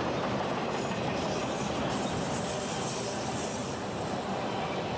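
CSX freight train of autorack cars rolling past: steel wheels on rail give a steady rumble, with faint high-pitched wheel squeal from about two seconds in.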